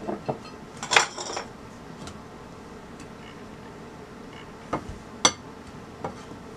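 Metal kitchen utensils clinking and tapping against a glass mixing bowl while dry dough ingredients are mixed. There are a few separate clinks, a small cluster about a second in and a couple more around five seconds in.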